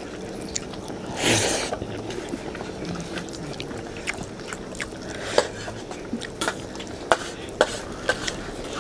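Several people eating rice and soup with their hands from steel plates: chewing and scattered small clicks and scrapes of fingers and food against the plates, with one short, louder rustling burst about a second in.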